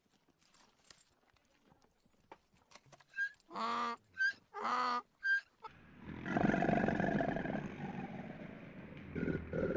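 Donkey braying: short high squeaks alternating with two longer, strongly pitched honks, between about three and five and a half seconds in. From about six seconds a longer, louder, rough drawn-out sound follows.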